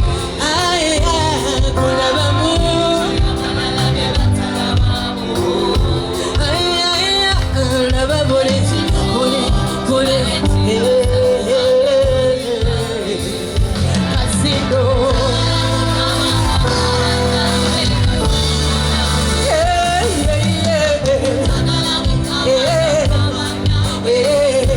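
Live band music with a singer carrying a wavering melody over a steady, pulsing bass beat.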